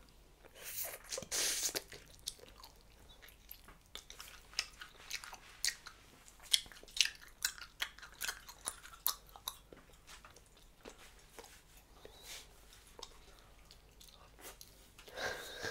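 Close-miked mouth chewing a wad of Hubba Bubba bubble gum: irregular wet smacks and clicks, several a second, with a louder hiss about a second in and again near the end.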